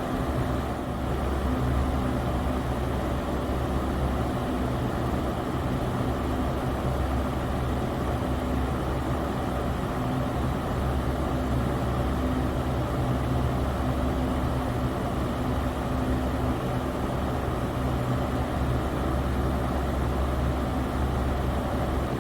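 Electric fan running steadily: an even rush of moving air over a low motor hum.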